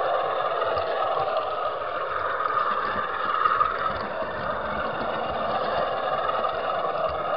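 Model railway wagon carrying a camera rolling along the track behind a model locomotive: a steady whirring of small wheels and the model's motor running on the rails, with faint occasional clicks.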